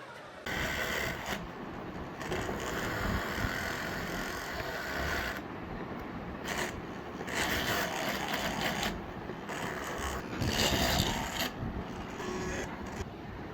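Homemade DC-motor-powered hand drill running, a mechanical gear-and-scrape noise that starts and stops several times.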